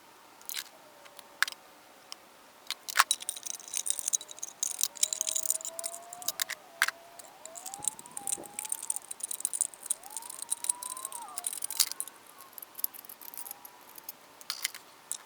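A thin metal tin can being cut short, with irregular sharp snipping clicks, scraping metal and squeaky tones that slide up and down as the metal is worked.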